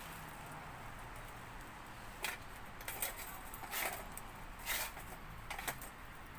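Wire grill grate lifted off a small wood-burning camp stove and a block of firewood dropped into the stove to feed it: about five short metal clinks and wooden knocks over a steady background hiss.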